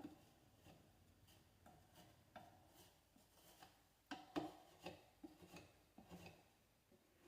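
Faint scraping strokes of Gorilla wall repair spackle being spread and worked into scratches on a wooden door frame, a quick run of short rubs with a louder cluster about four seconds in.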